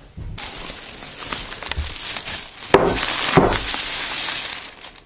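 Plastic carrier bag rustling and crinkling as it is handled. The rustle starts about half a second in and gets much louder from about the middle, with a few sharp crackles.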